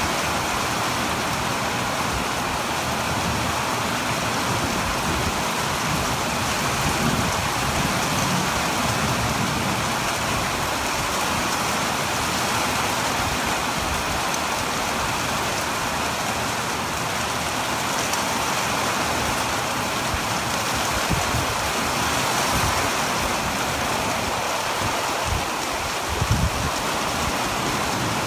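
Heavy rain falling steadily as a continuous even hiss, with a few brief low thumps near the end.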